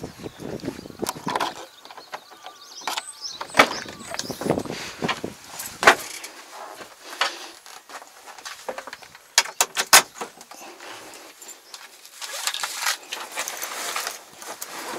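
Handling noises in a tractor cab: scattered clicks and knocks, a quick cluster of sharp clicks about two-thirds of the way through, and rustling near the end as things on and around the seat are moved.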